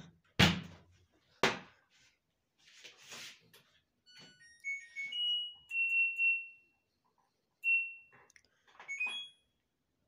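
LG Direct Drive front-loading washing machine: the door is pushed shut with two knocks in the first second and a half, then the control panel gives a run of short electronic beeps at several pitches as the programme dial is turned, one tone held for most of a second.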